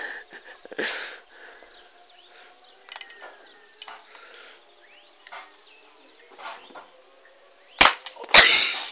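Airsoft pistol fired near the end: two sharp cracks about half a second apart, the second followed by a short loud noisy burst. Before that only faint bird chirps.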